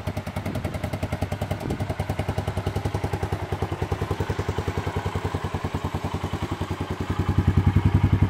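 Honda ATC 250 three-wheeler's single-cylinder engine idling with a steady, even putter of about ten pulses a second, louder from about seven seconds in.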